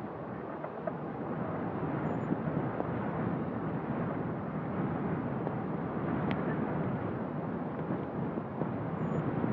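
Jet engines of a twin-engine Boeing 777 freighter running at low thrust as it taxis: a steady, even rush that grows slightly louder.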